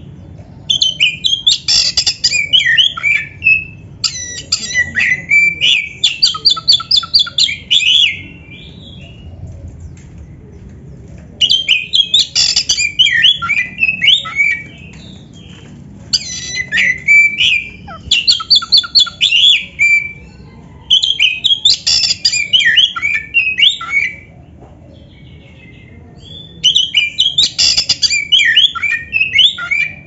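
Oriental magpie-robin singing in six loud phrases of rapid, varied notes, each two to four seconds long, with short pauses between them.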